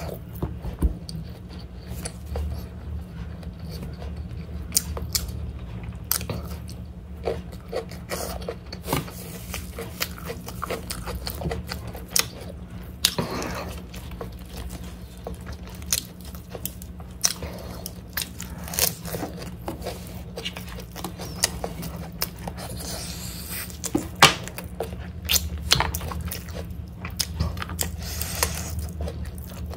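Close-miked chewing and biting of biryani rice and pork, with frequent wet mouth clicks and smacks; a crunchier bite of lettuce about halfway through. A steady low hum runs underneath.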